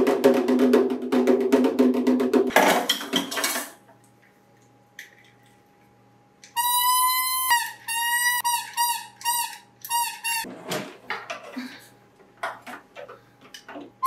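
Toy drum beaten rapidly for a couple of seconds, ending in a brief clatter. After a pause, a plastic toy horn is blown in a string of toots, all on one high pitch, some short and some held longer.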